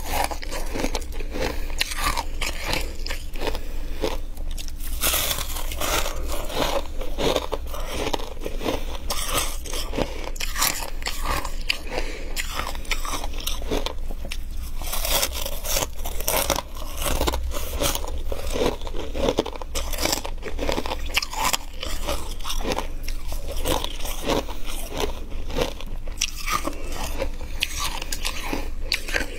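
Close-up biting and chewing of flaky, crunchy deep-freezer frost: rapid crisp crunches packed one after another.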